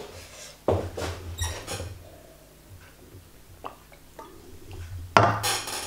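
A person drinking from a plastic cup, with small gulping and swallowing sounds after a few knocks and rustles early on. A loud breath out comes near the end.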